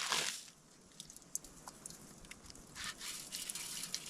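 Faint scattered clicks and crackles with soft rustling, starting with a short rustle that fades within half a second.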